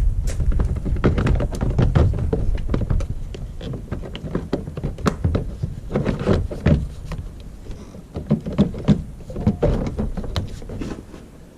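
Irregular clicks, taps and knocks of car parts being handled and fitted back into place, over a low rumble that fades during the first half.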